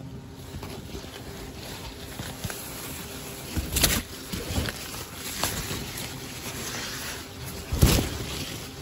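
Rustling and handling noise as the phone camera pushes through cucumber plants, with two loud brushing knocks against it, about four seconds in and again near the end.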